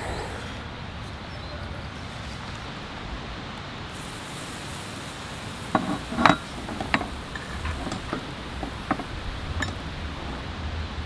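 A metal spoon and cast-iron cookware clinking and tapping: a handful of short sharp knocks, the loudest about six seconds in, over a steady low hiss.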